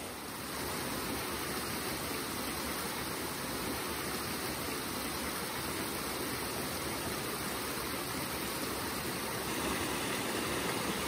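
Mountain stream running over rocks and small cascades: a steady, even rush of water.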